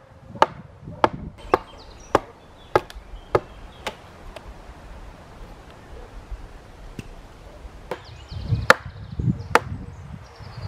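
Hatchet chopping into a log: a steady run of about seven sharp strikes roughly every half second, a pause, then two harder strikes near the end.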